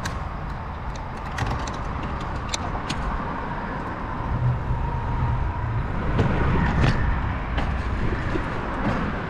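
Road traffic noise from passing cars, with a low wind rumble on the microphone of a moving bicycle.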